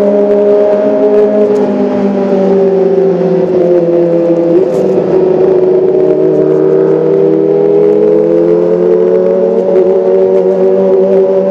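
Kawasaki ZX-25R's 250 cc inline-four engine running loudly and continuously, its note holding steady, dipping slightly about four seconds in, then climbing slowly toward the end.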